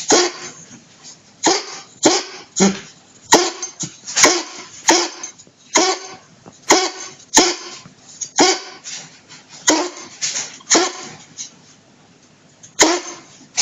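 Dog coughing in a long run of short, harsh hacks, irregularly spaced about half a second to a second apart, with a short pause near the end before one more cough.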